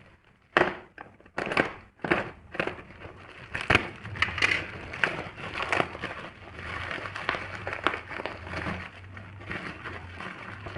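Packaging being handled: crinkling and rustling, with irregular sharp clicks and knocks.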